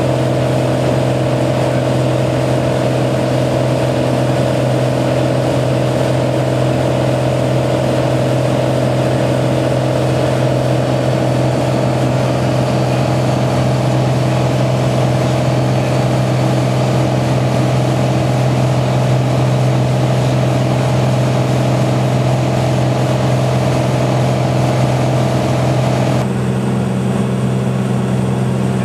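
Columbia 350's six-cylinder Continental IO-550 engine and propeller droning steadily in cruise flight, heard inside the cabin. Near the end the sound changes abruptly and some of its higher tones drop away.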